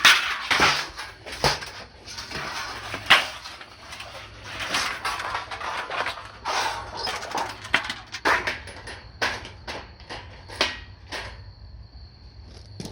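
Firewood being worked for a campfire: irregular knocks, cracks and scraping of wood being broken, cut and handled.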